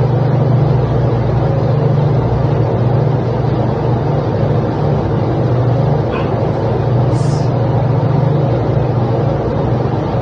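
Steady low engine drone with road noise, heard from inside a moving vehicle.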